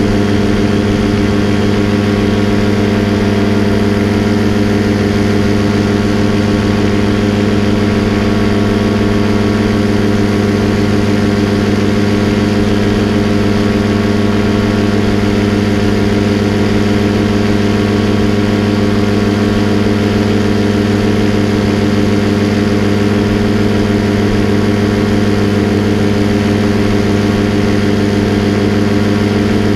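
Paramotor engine and propeller running at a steady throttle in flight: a constant drone whose pitch does not change.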